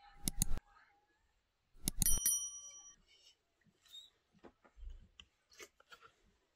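Steel tableware clinking: two sharp knocks just after the start, then about two seconds in a metal bowl struck hard rings out clearly for about a second, followed by faint small clicks of dishes.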